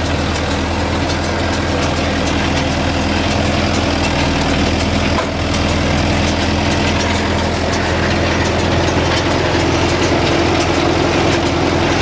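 Mahindra Yuvo 575 tractor's four-cylinder diesel engine running steadily while coupled through its PTO shaft to a straw baler, with faint rapid ticking from the machinery.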